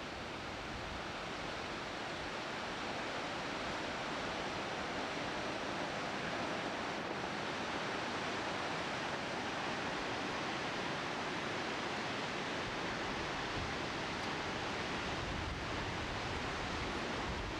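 Niagara Falls' water rushing steadily, an even wash of noise that swells slightly over the first few seconds.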